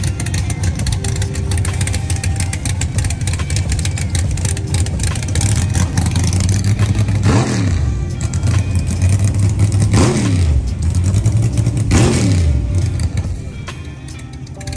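A drag car's engine running at a rough idle and revved in three quick blips, a few seconds apart, the pitch falling back to idle after each. It gets somewhat quieter near the end.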